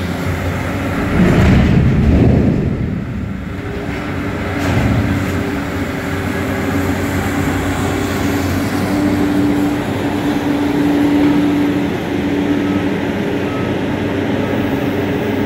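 Caterpillar M325D wheeled material handler running, its engine surging loudly about a second in, then settling to a steady drone with a held tone as the boom swings the grapple.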